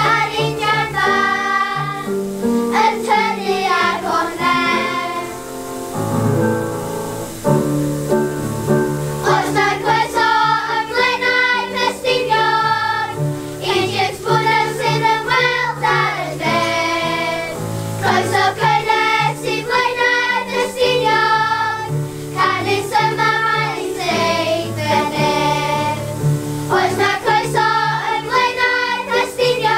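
Children's choir singing together over an instrumental accompaniment. About six seconds in the voices pause for a few seconds while the accompaniment plays on, then the singing resumes.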